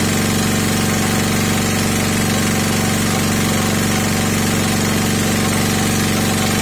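Sakura Storm D9000E portable generator's engine running steadily under electrical load, an even mechanical drone with a knocking edge and no change in speed.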